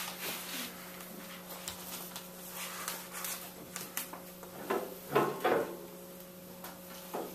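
Quiet room with a steady low hum, scattered small knocks and rustles, and two short murmured voice sounds about five seconds in.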